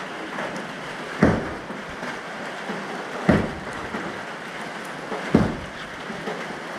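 Steady hiss of rain falling, with a heavy thump about every two seconds, three in all.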